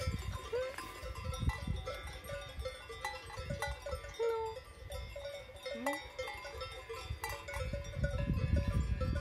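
Cowbells ringing and clanking from grazing cattle, many bell tones sounding at once. A low rumble on the microphone grows louder near the end.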